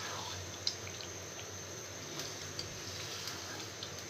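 Chicken pieces in a thick yogurt-and-spice korma sauce sizzling and bubbling in a nonstick pan as they are stirred with a spatula, with a few faint clicks of the spatula. This is the sautéing stage, the broiler chicken cooking in its own released juices.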